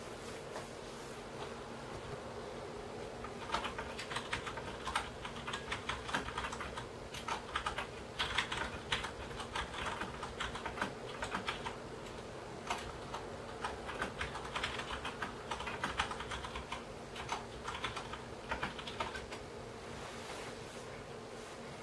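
Runs of quick, light clicks with short pauses between them, starting a few seconds in and dying away shortly before the end, over a steady low hum.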